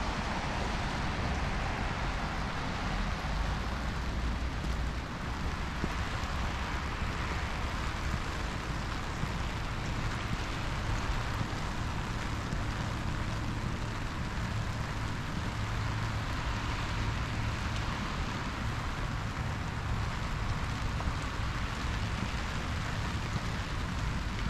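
Steady rain falling, an even hiss of drops, with a low steady rumble underneath.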